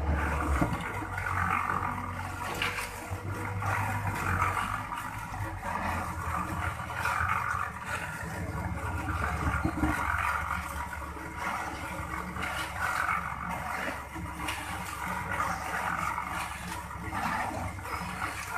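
A heavy-equipment diesel engine running under load, with a low rumble and a rushing noise that swells and fades every second or two.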